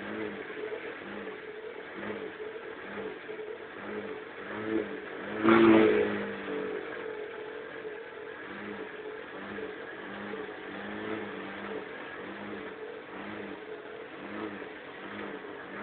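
Four-stroke Kymco scooter engine idling after a cold-weather kickstart, still warming up. The idle has a slow, regular pulse, and there is one louder swell about five and a half seconds in.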